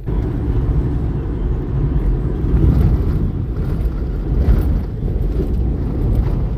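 Steady low rumble of a car on the move: road and engine noise heard from inside the vehicle.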